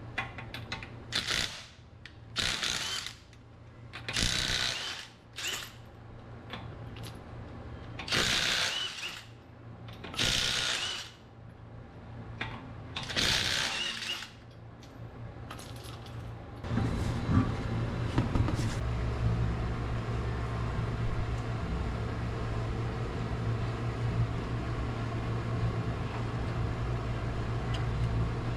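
About eight short bursts of tool noise, each under a second long, then from about seventeen seconds in a steady machine hum.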